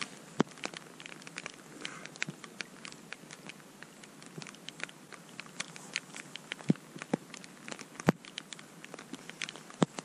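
Light rain pattering steadily, with irregular sharp ticks of single drops landing close by; a few louder ticks are scattered through.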